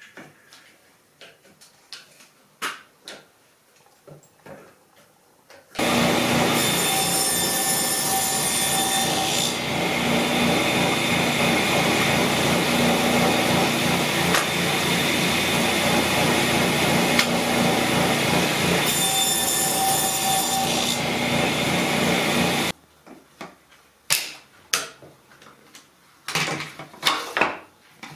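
Table saw running steadily for about seventeen seconds. It starts and stops abruptly, with a brief extra high whine near its start and again near its end. Before and after, light clicks and knocks of quick-release bar clamps and wooden blocks being handled on the saw table.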